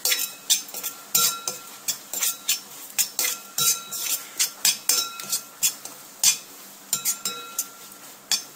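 Metal spoon stirring and scraping onion-and-spice masala in a brass uruli, clinking against the vessel again and again, roughly two to three times a second and irregular, each strike leaving a short metallic ring.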